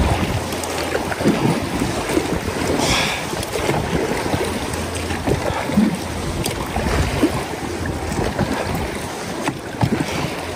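River water rushing and lapping around a boat drifting down the current, with wind rumbling on the microphone.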